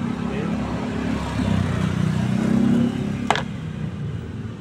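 A motor vehicle's engine running, growing louder over the first three seconds and then fading, with a single sharp click about three seconds in.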